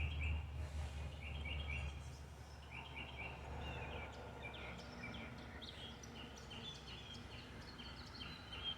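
Songbirds singing: short, quick chirping trills repeated every second or two, over a low steady rumble.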